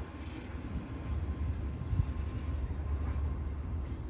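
Freight train's empty intermodal well cars rolling away on the rails: a steady low rumble of wheels with a few faint clicks.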